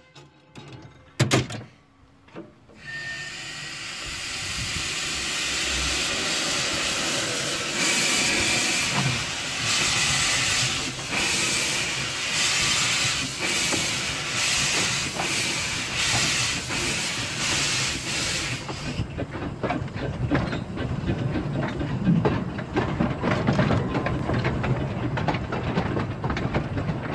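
Narrow-gauge Bagnall steam locomotive pulling away, heard from its footplate. A loud steam hiss comes with regular exhaust chuffs. About nineteen seconds in the hiss cuts off, leaving the beat of the exhaust and the rattle of the running train.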